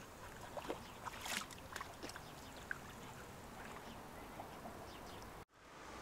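Faint waterside ambience: water gently lapping against stones, with a few brief faint ticks and chirps in the first half. It cuts off suddenly about five and a half seconds in, and a louder rush of wind on the microphone fades up.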